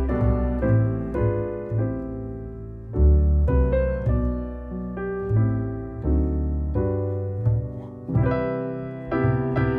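Background piano music: notes struck every half second or so over low bass notes.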